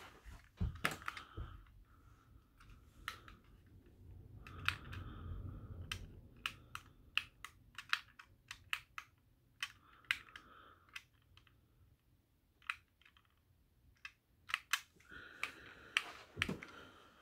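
Small plastic clicks of buttons being pressed, one after another at an uneven pace, on a handheld remote for battery LED lights, with some soft handling rustle in between.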